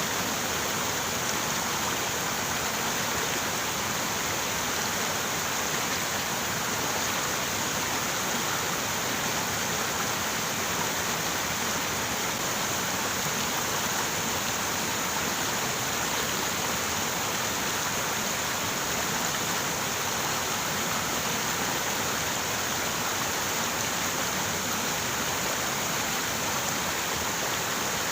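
River water running over rocks: a steady, unbroken rushing that does not change.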